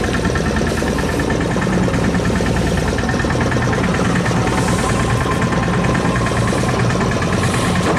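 Fishing boat's engine running steadily at idle, with a fast, even knock.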